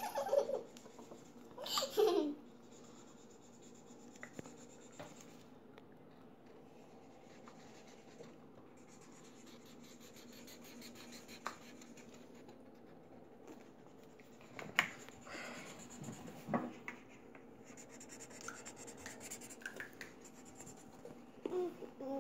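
Short bursts of laughter in the first two seconds. Then the faint scratching of felt-tip markers colouring on paper, with a few light clicks.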